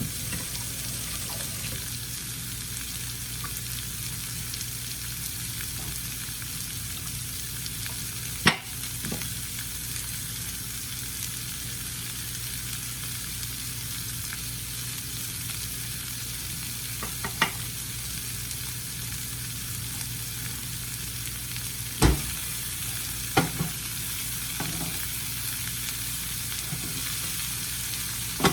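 Shredded cabbage frying in a pan, a steady sizzle as its water cooks off, stirred now and then, with a few sharp knocks of a utensil against the pan, the loudest about two-thirds of the way through.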